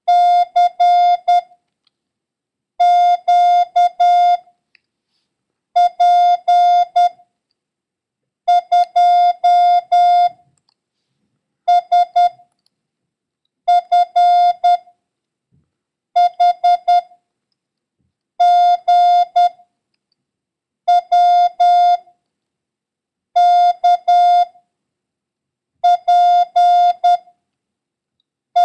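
Morse code sent as a steady electronic beep, keyed into short dits and long dahs. It sends single letters and numbers for copying practice, one character about every two to three seconds, with silence between them.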